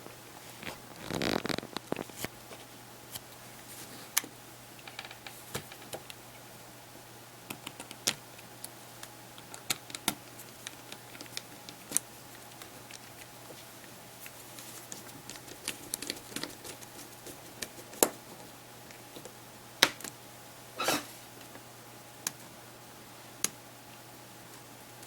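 Scattered light clicks and taps of small tools and plastic parts as a handheld media player is taken apart or put back together, with a brief rustle near the start and another near the end.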